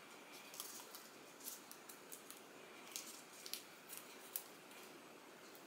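Faint crackling and rustling of green florist tape being stretched and wrapped around an artificial flower stem and a wire crown base, with a handful of small crackles.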